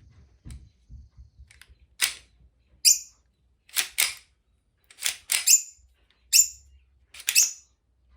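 Slide of a KLI 1911 Hi-Capa 'Baba Yaga' CO2 blowback airsoft pistol being worked by hand with no CO2 in it: about ten sharp clacks, several in quick pairs as the slide is pulled back and let go.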